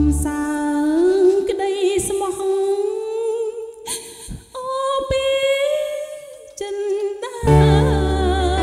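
A woman singing a Khmer song into a microphone with a live band, holding long notes with vibrato over sparse accompaniment. The full band, bass and drums included, comes back in near the end.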